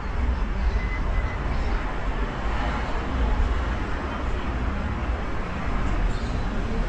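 Street ambience of passing traffic: a steady noisy rumble with a strong low end.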